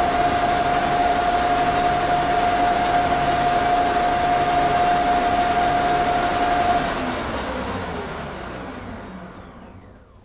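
Metal lathe running steadily with a high whine while spinning a tube being polished with a cloth. About seven seconds in, it is switched off and spins down, the whine falling in pitch and fading away.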